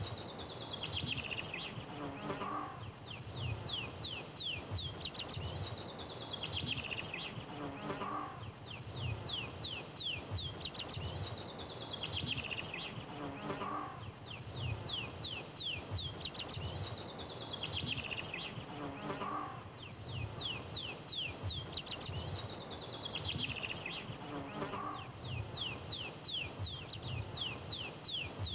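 Insects chirring: a steady run of rapid high chirps, swelling about every five to six seconds, over a low rumbling hiss.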